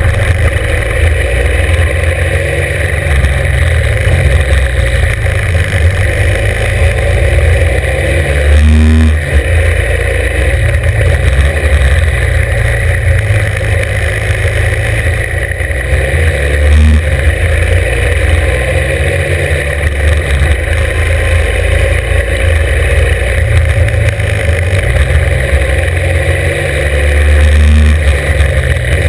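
Norton 750 Commando's parallel-twin engine under hard acceleration up a hill climb. The revs rise and fall repeatedly through the gears, with brief dips at the shifts.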